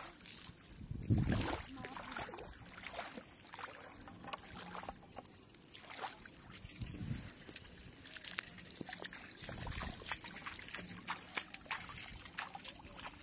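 Water trickling and sloshing, with many small clicks and a few low thuds from handling a wet cast net and a bucket.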